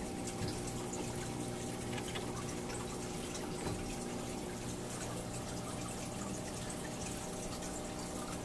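Aquarium filter water trickling and dripping steadily into the tank, over a steady machine hum.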